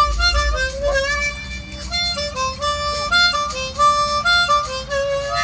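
Blues harmonica playing a riff: a quick run of notes stepping up and down, with a few held longer.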